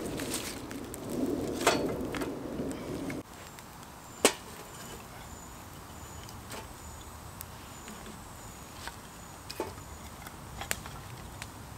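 Freshly lit twig-and-kindling wood fire crackling, with scattered sharp pops and snaps and one loud crack about four seconds in. In the first three seconds there is a louder rustling and cracking of dry twigs being handled, which stops abruptly.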